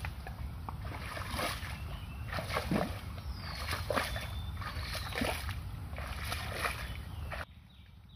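Splashing, sloshing footsteps of a person wading through shallow water, one splash with each stride. Near the end the sound cuts off suddenly and a much quieter, faint ticking takes over.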